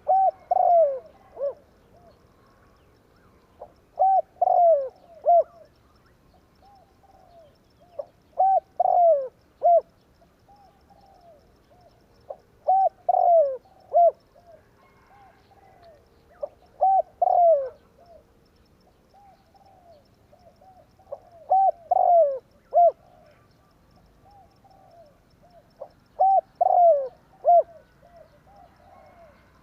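Spotted dove cooing: a phrase of a few short coos, each falling in pitch, repeated about every four seconds, seven phrases in all.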